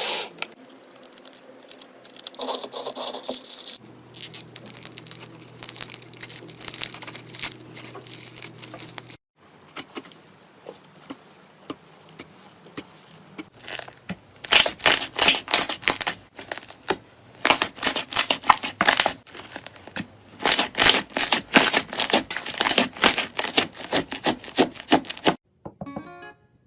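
Slime being squeezed and pulled by hand, sticky crackling at first, then a long stretch of dense, rapid crackling and popping clicks typical of crunchy slime. Acoustic guitar music starts near the end.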